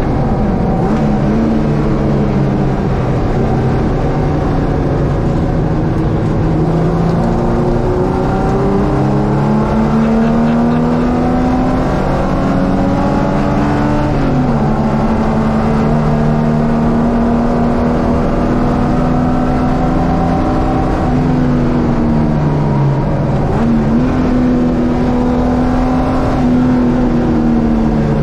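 Carburetted Ford Capri race car engine running hard at racing speed. Its pitch climbs slowly through long pulls and drops sharply about halfway through and twice more later on.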